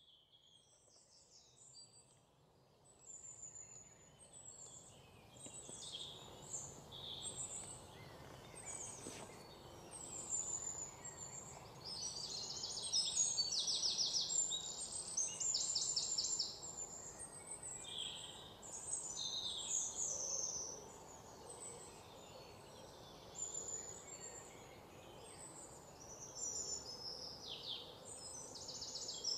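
Many small birds chirping, with quick chattering runs of notes, over a faint steady background hush of outdoor ambience.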